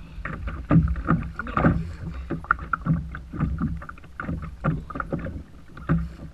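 Choppy sea water slapping and splashing against the hull of a plastic fishing kayak in irregular strokes, over a low rumble.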